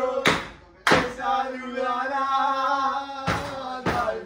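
Men celebrating at full voice: a few sharp claps or slaps, then one long held shout lasting about two and a half seconds, and two more claps near the end.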